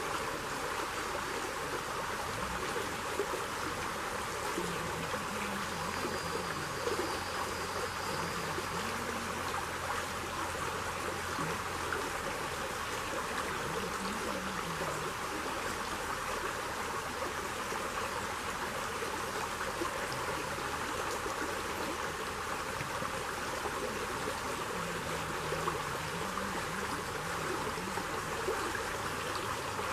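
A shallow forest stream running steadily over sticks and stones.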